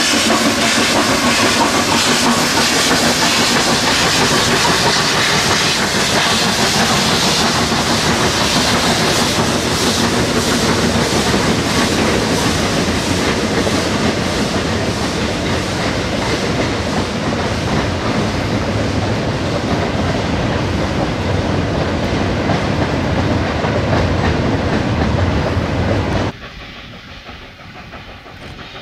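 Steam locomotive hauling a long train of open freight wagons past, its exhaust beating rapidly at first, then the wagons rolling by with the clickety-clack of wheels over rail joints. About 26 seconds in, the sound cuts off abruptly to a much quieter background.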